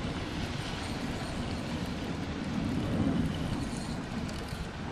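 Steady low rumble of wind on the microphone mixed with boat and water noise, with no distinct tones or clicks.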